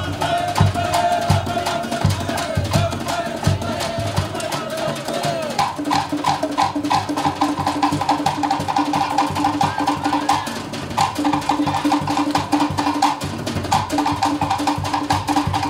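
Cook Islands drum ensemble: fast, steady knocking of wooden slit drums over deep beats of a large bass drum. For about the first five seconds the quick knocking drops out and a long wavering call sounds over the deep beats; then the knocking returns, with two brief breaks.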